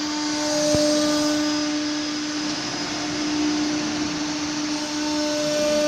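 CNC router spindle running at high speed and cutting a wood panel: a steady whine with a strong low tone over the hiss of the cut.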